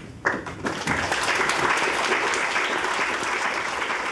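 Audience applauding: the clapping starts suddenly a moment in and quickly becomes steady applause.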